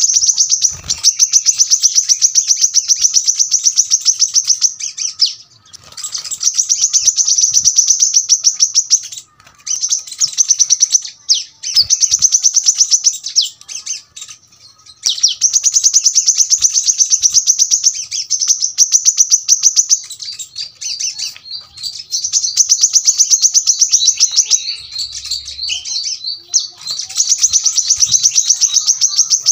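Brown-throated sunbird (kolibri kelapa) singing rapid, dense trills of high-pitched notes in runs of several seconds, broken by short pauses.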